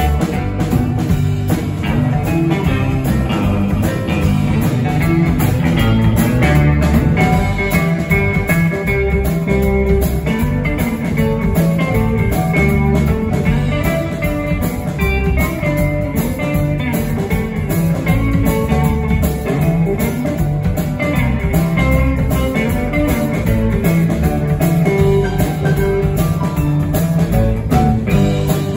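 Live band playing an instrumental passage without vocals: electric guitar with bass guitar, drum kit and keyboard.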